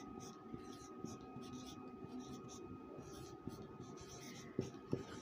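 Marker pen writing on a whiteboard: faint, quick, irregular scratching strokes, with two sharp taps a little before the end.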